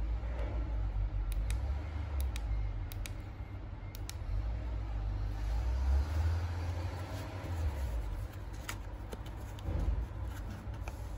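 Low, steady rumbling background noise with a few light, sharp clicks, several of them in quick pairs during the first four seconds.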